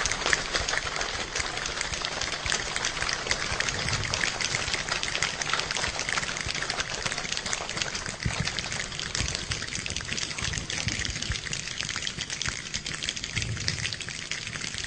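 A choir imitating a rainstorm with body percussion: a dense spatter of many finger snaps, claps and slaps, with occasional low thumps of feet on the floor. The "rain" thins out and grows quieter from about halfway through.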